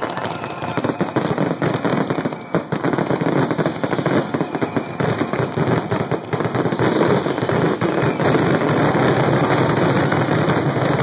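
Dense fireworks barrage: many shells bursting and crackling in rapid, near-continuous succession, louder and more solid in the second half.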